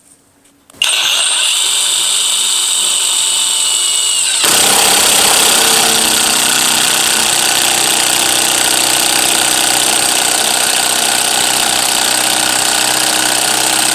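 Kobalt 24V brushless 1/4-inch impact driver on its low speed setting, driving a 5/16 by 3-inch construction screw. It starts about a second in with a whining run. At about four and a half seconds it turns louder and denser as the impact hammering takes over, and it keeps on steadily.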